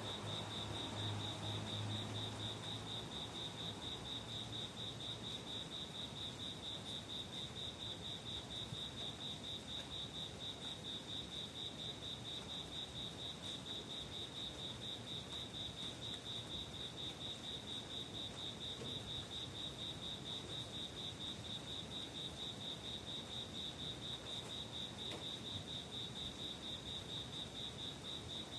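A cricket chirping on and on, one high note pulsed in an even, rapid rhythm that never breaks. A low hum fades out in the first few seconds.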